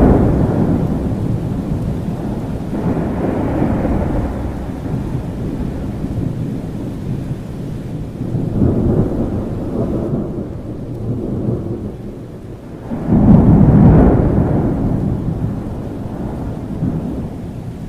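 Thunderstorm: steady rain with rolling thunder, the rumbles swelling and fading several times, and a louder thunderclap rolling in near the end.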